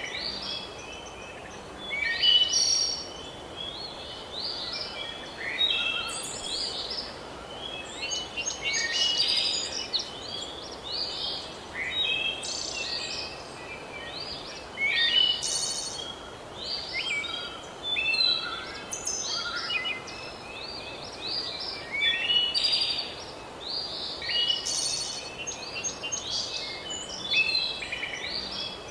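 Songbirds singing, with many short chirping phrases one after another over a faint steady background hiss.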